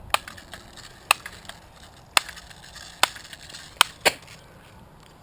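A gun fired six times in sharp single shots, about a second apart, with the last two close together.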